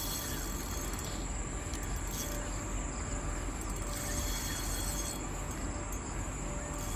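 Insects chirring steadily in the grass, a high sound that swells and fades in pulses about a second long, over a steady low rumble.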